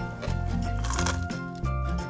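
Background music with a steady beat: a repeating bass line under pitched instrument notes.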